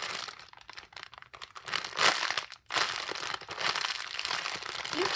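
Crinkling and crunching handling noise, many small crackles in quick succession with short pauses about one second and two and a half seconds in.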